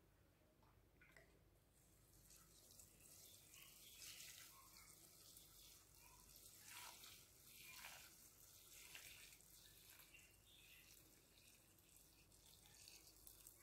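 Faint, steady trickle of warm water poured in a thin stream from a pot into a stainless steel saucepan over dry vermicelli.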